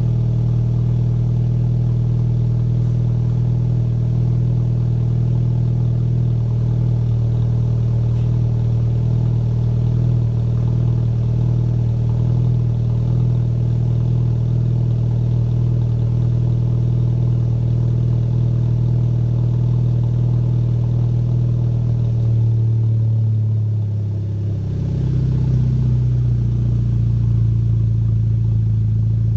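Volkswagen Golf GTI's turbocharged four-cylinder, fitted with an EFR 7163 turbo and a 3-inch turbo-back exhaust with race cat and no resonator, idling steadily through the exhaust after a cold start. About 23 seconds in the idle briefly wavers in pitch and dips in level, then steadies again.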